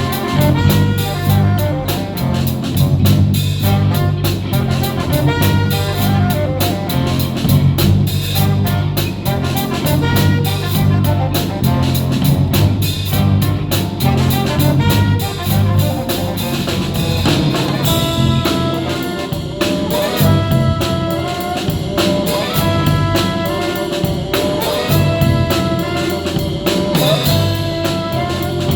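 Live band playing a New Orleans-style jazz tune: brass over a drum kit and a steady, repeating bass line.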